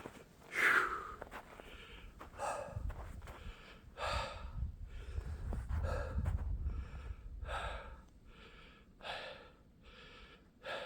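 A hiker breathing hard from the exertion of a long uphill climb, with about eight loud breaths spaced a second and a half or so apart. A low rumble runs under the middle of it.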